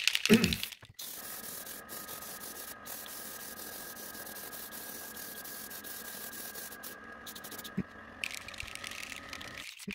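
Airbrush hissing steadily as it sprays paint onto a resin stick-bait lure, with a faint steady whine and a few brief breaks in the spray.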